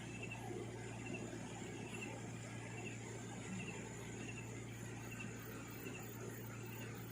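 A night animal in the forest repeating a short, high-pitched call at an even pace, just over once a second, over a steady low hum and background noise.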